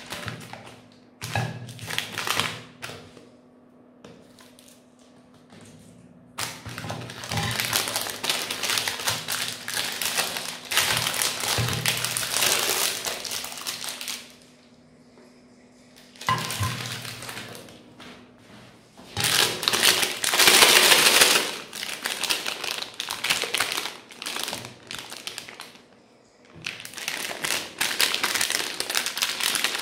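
Magnum ice cream bar wrappers, foil-lined plastic, crinkling as they are torn open and peeled off the bars, in several long bursts with short pauses between them. The loudest burst comes about twenty seconds in. A few light knocks of the frozen bars being set down on a glass plate come in the first seconds.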